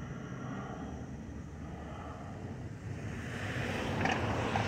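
Airbus A321 jet engines, CFM56 turbofans, droning in the air as a steady rumble with a faint whine. About three seconds in, a louder rush of wind on the microphone rises over it.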